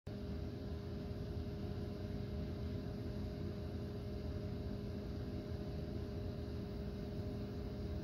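A steady low mechanical hum with a few held tones, unchanging throughout.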